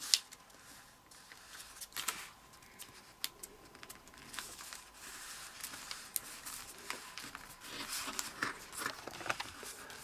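Kami origami paper being folded and creased by hand: soft rustles and scattered crisp clicks as flaps are lined up and pressed flat, with a sharp click right at the start.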